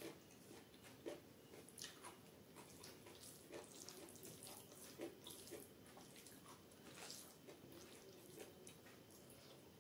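Fingers mashing and mixing rice with runny chana dal dubke on a plate: faint, wet squelching with soft, irregular clicks.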